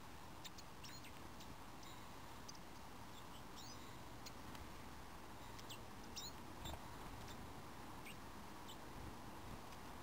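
Small garden songbirds giving short, thin, high-pitched call notes, scattered irregularly and faint.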